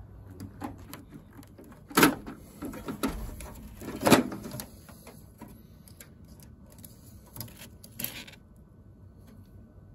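Plastic power-supply cable connectors being unplugged and handled inside a server chassis: two sharp clacks about two and four seconds in, with lighter clicks and cable rustling around them.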